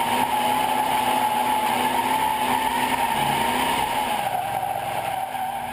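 A 1968 Dodge Charger's V8 running hard while its tyres squeal steadily as the car slides around in a circle. About four seconds in the squeal drops a little in pitch and the whole sound eases off.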